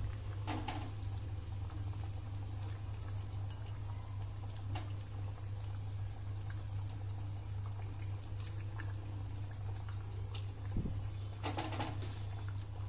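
Chicken and potato gravy simmering in a non-stick pan, a faint bubbling and crackling over a steady low hum, with a few soft knocks as fried potatoes are set into the pan.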